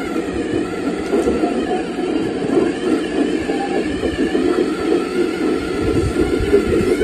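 1/8-scale RC D65 bulldozer running on its tracks: a steady, rough mechanical rattle with a faint whine above it.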